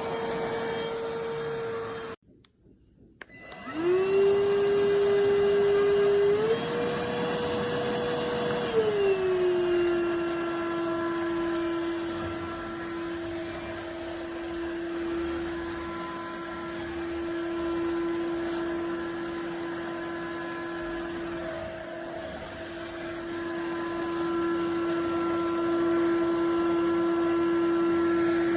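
iwoly C150 cordless stick vacuum's motor running with a steady whine. It cuts out for about a second, spins back up with a rising whine, then steps up in pitch for a few seconds before settling lower and running steadily.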